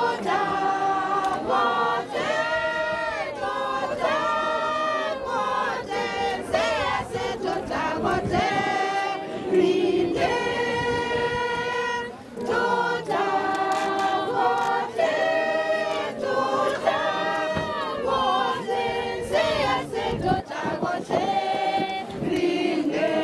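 A choir of voices singing together in long held phrases, with a short break in the singing about halfway through.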